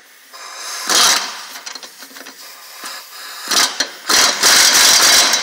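Impact wrench hammering in two bursts, a short one about a second in and a longer one of nearly two seconds near the end, tightening the lug nuts that hold a wheel spacer onto the truck's rear hub.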